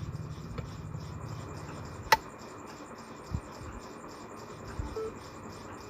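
Handling of a homemade switch-and-socket extension board as it is tested: one sharp click about two seconds in, then a few soft knocks, over a faint steady background.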